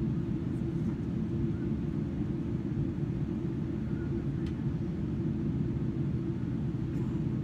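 Steady low cabin drone of a Boeing 777-300ER in flight on approach, engine and airflow noise heard from inside the economy cabin.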